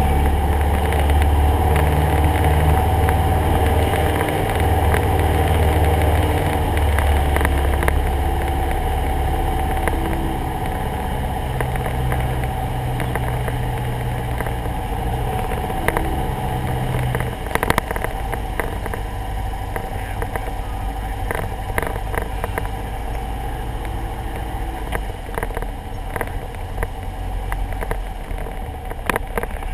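Cessna 172SP's four-cylinder piston engine droning in the cabin at a steady power setting. About seventeen seconds in, its low hum drops away and a run of sharp knocks and rattles begins.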